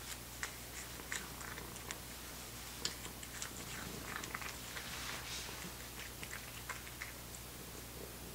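Cat eating dried bonito flakes (katsuobushi) from a bowl: quick, irregular wet chewing and crunching clicks that thin out about seven seconds in.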